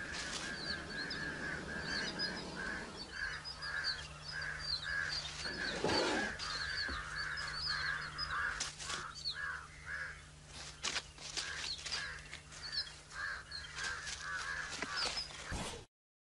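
Birds calling over and over: quick high chirps above a steady string of lower, pulsing calls, with a low steady hum underneath. The sound cuts off suddenly just before the end.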